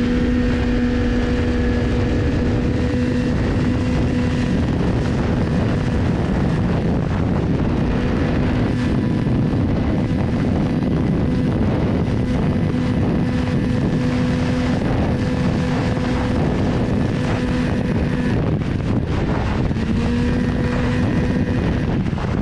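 Two-stroke Rotax 583 twin in a 1981 Ski-Doo Blizzard snowmobile running flat out at a steady high pitch, over heavy wind rush on the microphone. The engine note fades for a second or two near the end, then comes back.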